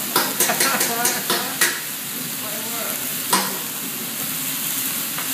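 Food sizzling on a teppanyaki steel griddle, with a quick run of sharp metal clicks in the first second and a half and one more about three seconds in, from spatulas striking the hot plate.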